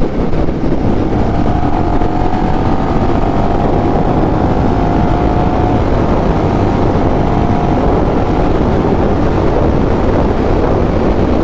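Honda Rebel 1100 DCT motorcycle's parallel-twin engine running at steady highway speed under a heavy rush of wind over the microphone. A faint, slightly rising whine sounds through the middle.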